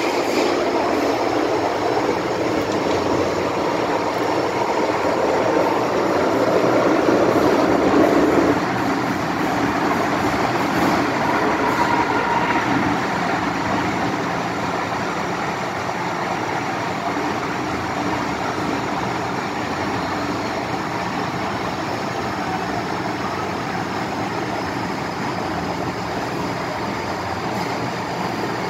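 Cabin noise of an MTR Island Line M-Train running through a tunnel: a steady rumble of wheels on rail and running gear. It is loudest for the first eight seconds or so, then eases to a slightly quieter, even run.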